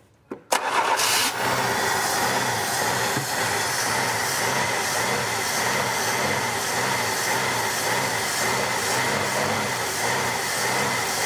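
The 1964 Dodge Dart GT's engine, long unused, catches about half a second in and keeps running with a steady, even beat, fed on gasoline poured from a bottle into the carburetor.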